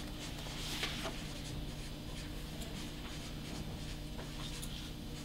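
Soft rustling of a sheet of paper being picked up and handled, loudest about a second in, over a steady low hum.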